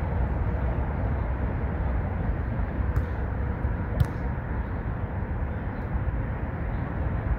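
Steady low rumble of traffic on the elevated roadway overhead, with two sharp slaps about three and four seconds in, the second louder, as players hit the volleyball.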